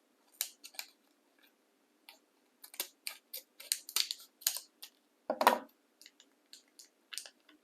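Scissors snipping into the side of a slime package: a run of short, sharp snips and crackles, the loudest about five and a half seconds in.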